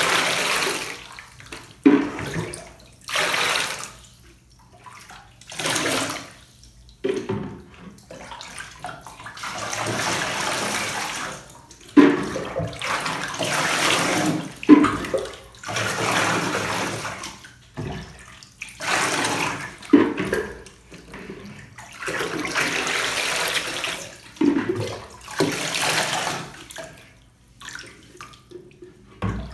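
Bath water poured from a pitcher and splashed over a small dog in a bathtub, in repeated bursts of a second or two with short pauses between.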